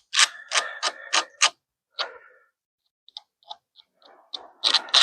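Razor blade scraping along a wooden board in quick repeated strokes, about three a second. The strokes pause in the middle, with a few light ticks, then start again near the end.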